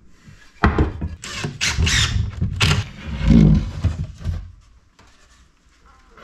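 Wooden frame strips and a plywood panel knocking and scraping against each other and the workbench as the loose frame is swung around, with a dull thump about three seconds in.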